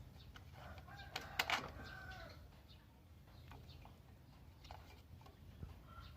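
Chickens calling in the background, with a cluster of sharp clicks about a second and a half in, the loudest sound.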